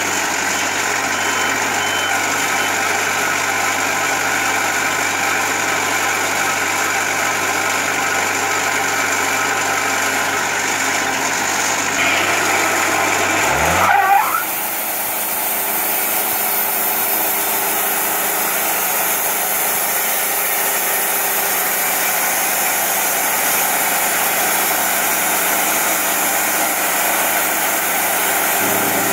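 Kubota diesel engine of a Wood-Mizer portable band sawmill running steadily. About halfway through there is a short rising sweep as the machine speeds up, and it then runs on with a brighter, hissier sound.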